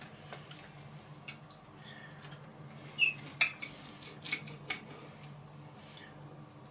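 Knife and fork clinking and scraping against a plate during a meal: scattered light clicks, the loudest about three seconds in with a brief metallic ring.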